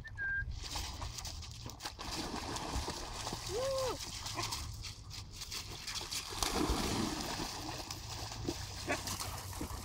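Dogs wading and splashing in shallow river water at a gravel edge, with scattered splashes.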